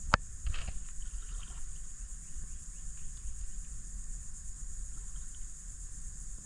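A steady, high-pitched insect chorus, with one sharp knock just after the start and a low rumble underneath.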